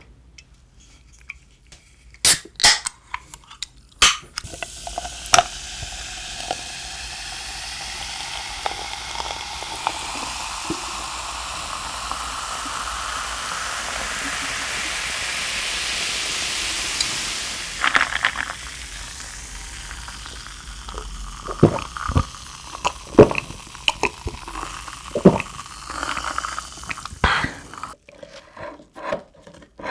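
Cooking sounds: a hiss that builds for about twelve seconds and then cuts off, with scattered clicks and knocks before and after it.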